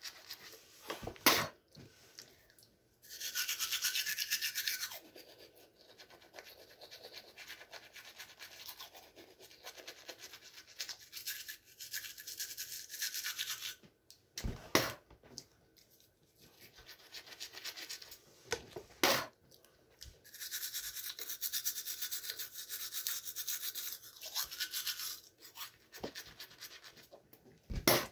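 Manual toothbrush scrubbing teeth in bouts of fast back-and-forth strokes, with pauses between. A few sharp knocks stand out, four times in all.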